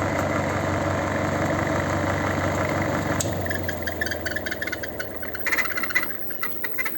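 Spin-dryer motor of a plastic twin-tub washing machine running with a steady hum: it is spinning again now that its faulty lid-switch contact has been bypassed with a wire. About three seconds in the motor cuts out and the hum fades as the drum winds down, with scattered clicks and rattles.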